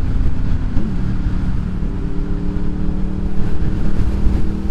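Honda VFR motorcycle's V4 engine running under way at a steady cruise. Its note dips about a second in, then holds an even pitch.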